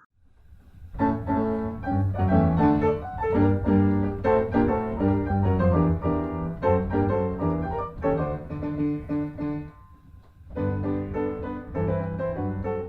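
Background music led by piano, with a steady pulse of notes changing chord, dipping briefly about ten seconds in before picking up again.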